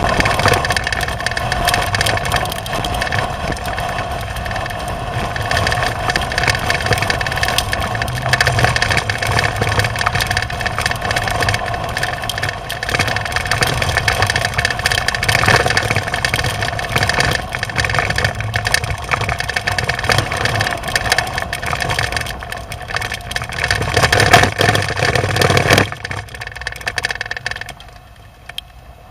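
Vehicle engine running steadily, dropping away sharply about 26 seconds in.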